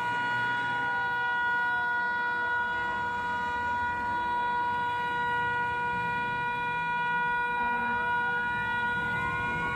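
Sirens: one holds a steady high, pitched tone throughout, while a fainter one falls in pitch over the first few seconds and rises again near the end, over a low rumble.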